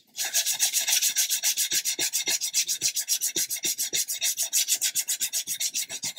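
Coarse nail file rasping back and forth over the wooden planking of a model ship's hull, shaping the stern. Fast, even scraping strokes, many a second.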